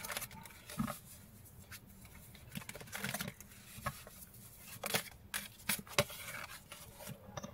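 A deck of oracle cards being shuffled by hand: faint, irregular rustles and light taps as the cards slide and knock together.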